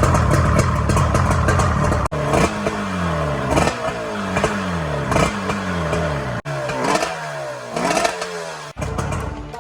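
1990 Yamaha WaveRunner 650TL's two-stroke twin engine running hard, then blipped over and over, the pitch dropping back after each rev about once a second. The sound breaks off abruptly a few times between short clips.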